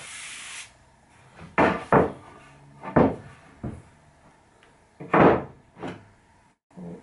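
Planed pine boards being slid and knocked together on a wooden workbench: a short scrape at the start, then a series of irregular wooden knocks, the loudest a little after five seconds in.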